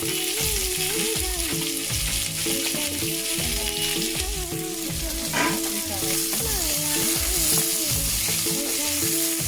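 Onion and capsicum sizzling in hot oil in a pan as they are stir-fried, a steady frying hiss. Background music with a steady beat plays underneath.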